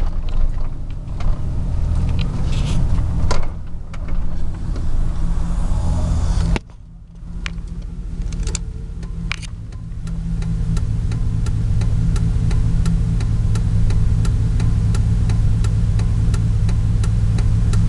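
A 2000 Chevrolet Silverado's 4.8 L V8 is heard from inside the cab, running at low speed through a muffler with its fiberglass packing removed. The engine drops off sharply about six seconds in, then builds back up. Through the second half the turn signal clicks steadily, about twice a second.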